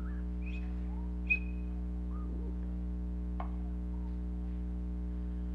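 A steady low electrical hum, with a few short high chirps and whistle-like glides over it and a single sharp click about three and a half seconds in.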